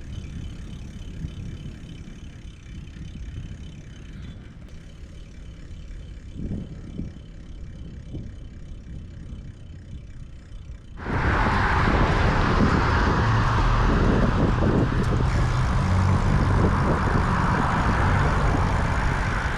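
A vehicle running with a low steady rumble. About eleven seconds in, a much louder rushing noise suddenly comes in over it and stays.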